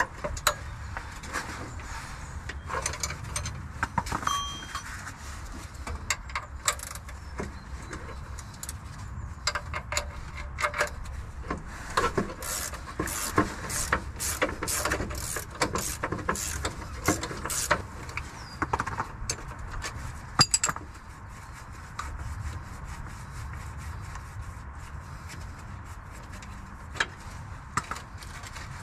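A socket ratchet clicking in short runs and metal tools clinking against the car's underside while the gearbox-to-subframe bolt is worked loose. A long, even run of sharp clicks comes about halfway through, and a single loud knock follows a few seconds later, over a steady low rumble.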